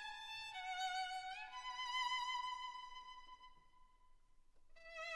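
Background music: a violin playing a slow melody of long held notes that slide from one pitch to the next, dying away almost to nothing near the end before a new note comes in.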